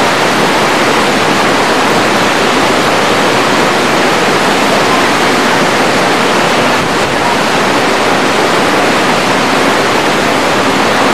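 The Bhagirathi, a fast mountain river, rushing past: a loud, steady wash of water noise that never lets up.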